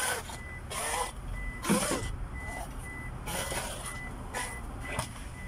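Wet mopping of a van's rubber floor mat: several swishing, splashing strokes. Under it, a high electronic beep on one pitch repeats at an even pace.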